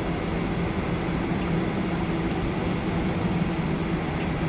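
Steady rumble of an airliner's engines and cabin as it taxis after landing, with a low drone underneath.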